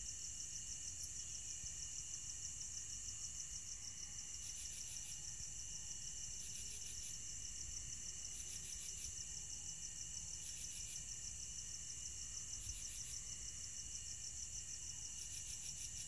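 Night chorus of crickets: a steady, fast-pulsing high trill, with a higher chirping call cutting in about every two seconds.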